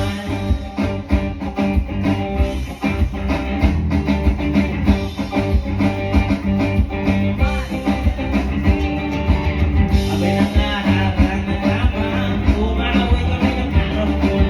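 Live band playing a rock song: guitar, bass and drums with a steady beat and a singing voice, the sound getting brighter about ten seconds in.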